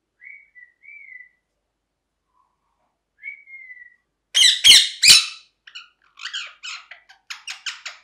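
Rose-ringed (ringneck) parakeet calling: a few soft whistled notes, then, a little after four seconds in, three loud harsh screeches, followed by a quick run of shorter squawks.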